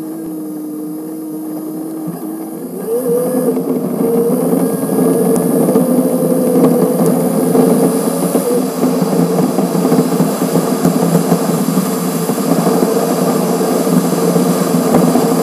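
Car engine and road noise from a grille-mounted camera, sped up six times, so the engine note sounds high. The note is steady at first, then rises and grows louder about two and a half seconds in as the car speeds up, and holds there over a steady rush of tyre and wind noise.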